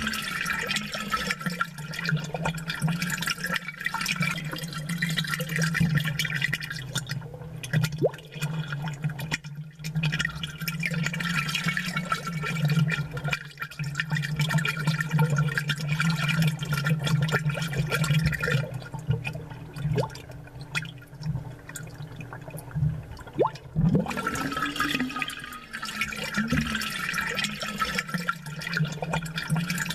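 Amplified aquarium sound: air bubbles and churning water over a steady low hum from the tank's pump.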